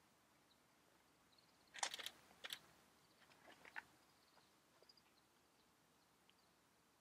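Near silence, broken by a brief cluster of faint clicks and rustles about two seconds in and a few softer ones a second or so later, with faint short high notes in the background.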